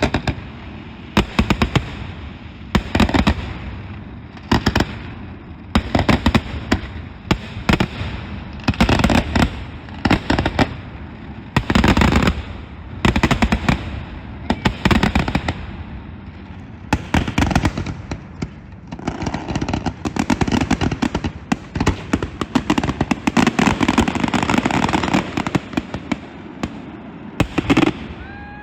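Fireworks finale: rapid volleys of aerial shell bursts going off in quick succession, clusters of sharp bangs every second or two. In the second half the bangs merge into a dense, continuous crackling barrage.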